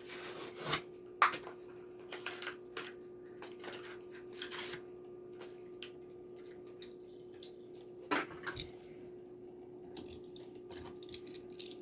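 Plastic blister packaging of a die-cast toy car being handled and opened: scattered crinkles, clicks and taps, the sharpest about a second in and again around eight seconds, over a faint steady hum.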